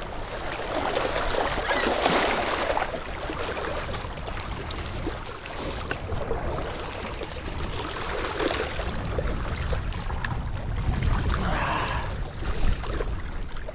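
Wind buffeting the microphone in a fluctuating low rumble, over water splashing and lapping at the lake's edge.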